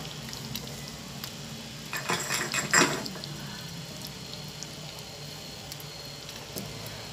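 A wooden spatula stirring a simmering kaldereta (pork stew in a coconut-milk sauce) in a metal pan, with a short burst of scraping and clatter about two seconds in. Faint bubbling and light ticks of the simmering sauce before and after it.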